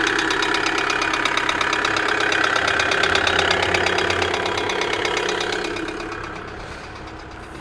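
Kia Sedona 2.9 CRDi four-cylinder diesel idling with a loud, fast, rhythmic knocking rattle, which fades near the end. The mechanic puts the knock down to the timing chain; the cam-to-crank timing is slightly out (fault code P0016).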